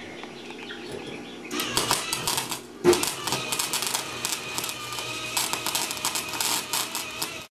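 Dense, rapid mechanical clicking and clattering over a few steady tones. It starts about a second and a half in, has one sharp knock about three seconds in, and cuts off abruptly at the end.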